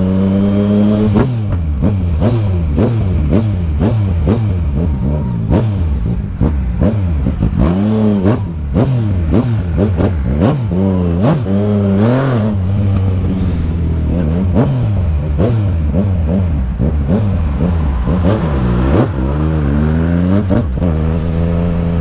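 Yamaha MT-09's inline three-cylinder engine heard from the saddle, revving up and falling back again and again as the throttle is opened and closed at low speed in traffic.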